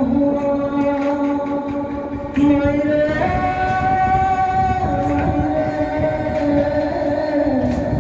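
A man singing a Hindi song into a microphone over a karaoke backing track through the hall's PA, holding long notes. It gets louder about two and a half seconds in.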